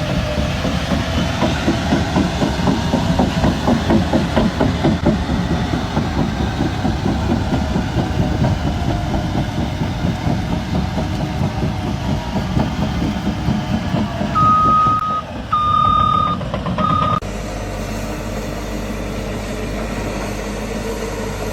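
Heavy earthmoving machine running hard, its engine and running gear giving a dense, rhythmic low clatter. A backup alarm beeps three times near the end, after which the sound changes abruptly to a smoother, steady engine drone.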